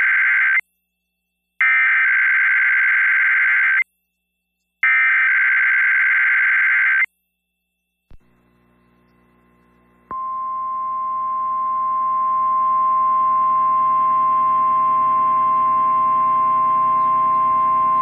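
NOAA Weather Radio SAME alert header: buzzing, warbling digital data bursts of about two seconds each with a second's gap between them. The end of one burst is followed by two more, the last ending about seven seconds in. After a click and a short hiss, the steady 1050 Hz weather-radio alarm tone starts about ten seconds in and holds, with a faint low hum beneath it.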